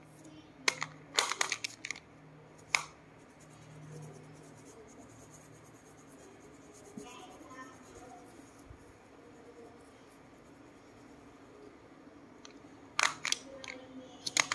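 Wax crayon and paper handling: short scratchy bursts of crayon strokes and crayons being picked up and set down, in a cluster in the first couple of seconds and again near the end, with a quiet stretch between.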